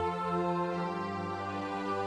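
Background music of slow, sustained chords, the notes held and changing only gradually.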